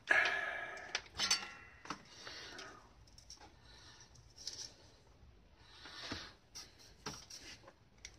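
Heavy nasal breathing and sniffing close to the microphone: a loud sniff with a slight whistle at the start, shorter breaths after it, and a long breath about six seconds in. A few light clicks near the end.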